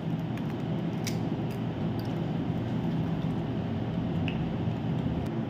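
A raw egg cracked and dropped into a plastic bowl: a few faint clicks and a soft squish, over a steady low background hum.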